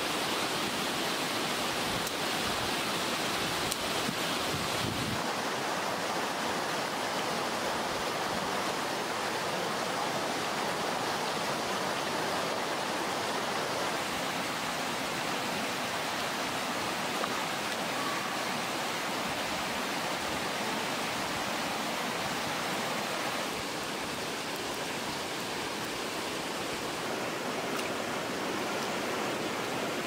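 Shallow rocky stream running over a small cascade: a steady rush of water that turns slightly quieter for the last quarter.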